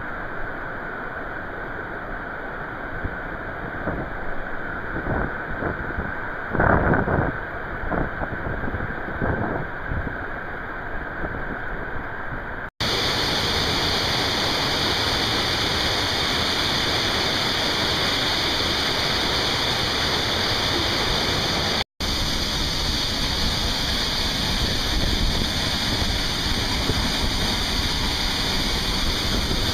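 Mountain canyon waterfall pouring into a plunge pool: a steady rush of white water. About thirteen seconds in, after a brief dropout, the rush turns louder and hissier, with another short dropout a little past halfway.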